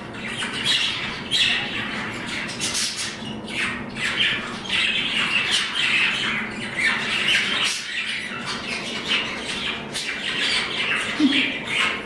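Several budgerigars chattering nonstop, a dense run of short, sharp chirps and scratchy calls.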